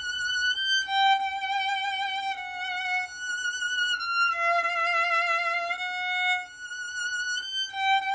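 Solo violin playing slow, held notes with vibrato, sliding between positions from one note to the next, in a passage that moves up and down by semitones.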